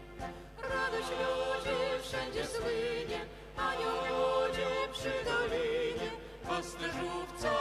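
A small mixed ensemble of women's and men's voices singing a Christmas carol in phrases, with short breaks between phrases about half a second in, at about three and a half seconds and near six and a half seconds.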